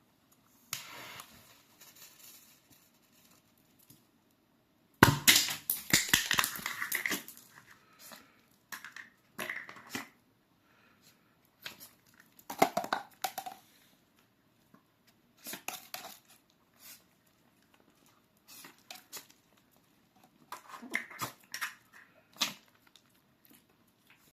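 Nico 'Blondes Gift' table firework going off: a short hiss about a second in, then a sharp bang about five seconds in, followed by a couple of seconds of crackling and rustling. After that comes paper rustling and crinkling on and off.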